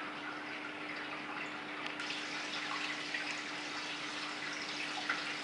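Water in a large aquarium trickling and splashing steadily with small drips, over a steady low hum.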